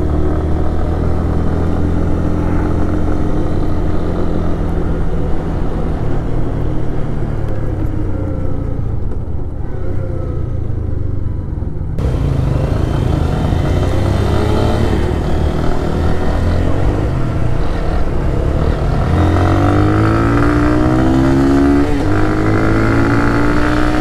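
Lifan KPR 200 motorcycle's single-cylinder engine running under way, with wind rushing past. In the second half the engine note climbs in several rising sweeps as the bike accelerates.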